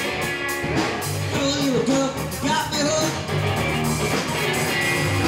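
Live band playing a rock number: electric guitar, bass guitar and drum kit, amplified in a small room.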